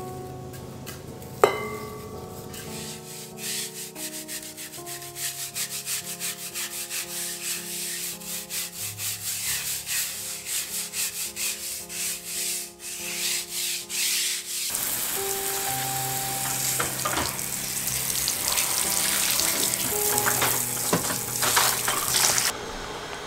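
A sharp knock about a second and a half in, then rapid, regular scrubbing strokes across a soapy table top. About two-thirds of the way through, a hose spray nozzle starts spraying water over the surface with a steady loud hiss, which cuts off shortly before the end. Soft background music plays underneath.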